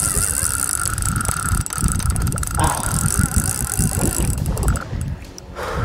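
Spinning reel's drag whining steadily as a big fish pulls line off it, stopping about four seconds in, over a low rumble of wind and water.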